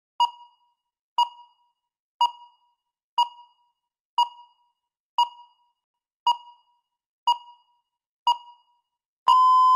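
Electronic countdown timer beeping: nine short pings, one a second, then a longer steady beep near the end that marks the preparation time running out.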